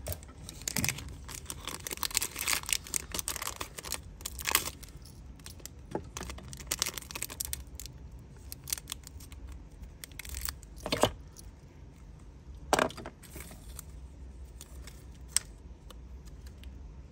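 A Zippo lighter being handled: a cluster of rustling and clicking for the first few seconds, then a few separate sharp metallic clicks.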